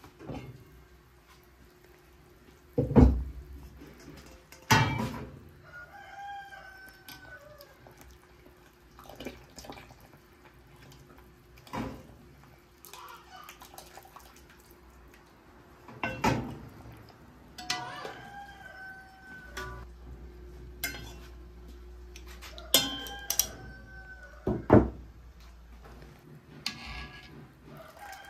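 A rooster crows about three times, quieter than the kitchen work, over several sharp knocks and clatters of kitchen utensils and dishes, which are the loudest sounds.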